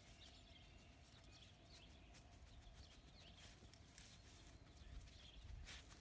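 Very faint rustling and crackling of dry grass as a dachshund noses and digs in it, in scattered small ticks, over a faint steady hum.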